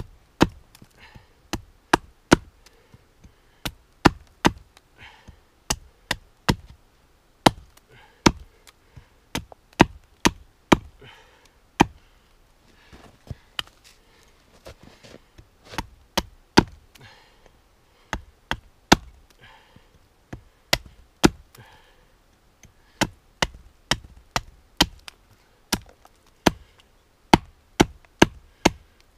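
An axe repeatedly striking the top of a wooden wedge to drive it into a log and split it. Dozens of sharp wooden knocks, often in quick pairs, with a short lull about halfway.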